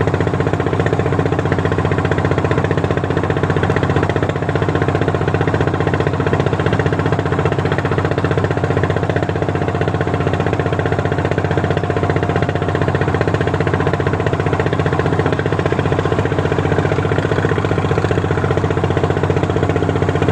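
Fishing boat engine running steadily under way, with a fast, even beat.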